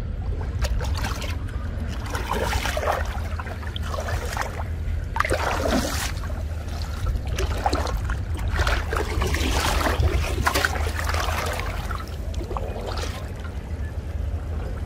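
Shallow water splashing and sloshing irregularly as a person wades and hauls in a fine-mesh fishing net, over a steady low rumble of wind on the microphone.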